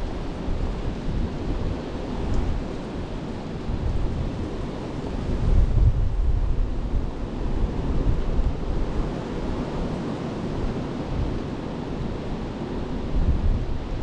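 Strong wind buffeting the microphone: a heavy low rumble that swells and eases with the gusts, loudest about six seconds in.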